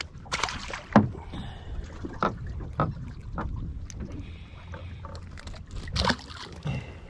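Hooked fish splashing and thrashing at the water's surface beside a boat's hull, in a few short, sharp bursts; the loudest comes about a second in and another about six seconds in.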